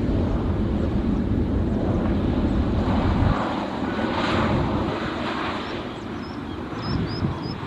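Jet airliner engines running loud with a deep rumble that drops away suddenly about three seconds in, leaving a fainter engine sound. A few short high chirps come near the end.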